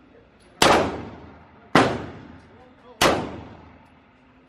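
Three handgun shots, evenly spaced a little over a second apart, each ringing on in the echo of an indoor range.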